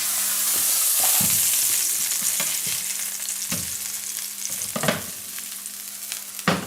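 Vegan burger patties sizzling in hot oil in a frying pan just after being flipped; the sizzle swells over the first couple of seconds, then eases. A few short knocks, about four, sound through it.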